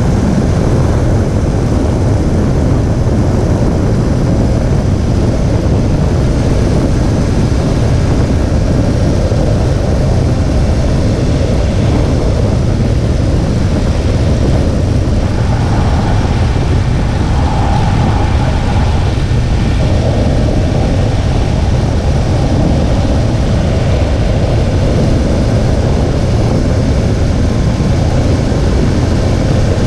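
2017 Infiniti Q50's VR30 twin-turbo V6 car under way: steady, loud engine and road noise with a deep low rumble. A faint higher tone comes in briefly a little past the middle.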